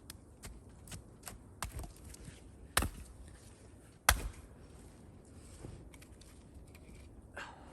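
Firewood being broken up by hand: a few irregular, sharp wooden knocks and cracks, the two loudest about three and four seconds in.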